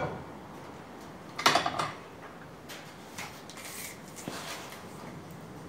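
Metal clanks and clinks as a steel bar is shifted and set in the vise of a power hacksaw, a loud cluster about one and a half seconds in followed by a few lighter ticks. The saw is not running.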